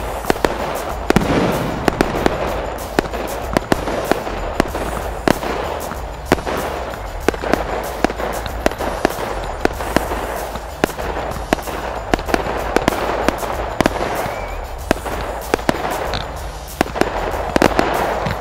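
Fireworks display going off: a rapid, irregular string of sharp bangs from mortar shells bursting, several a second, over a steady crackling hiss.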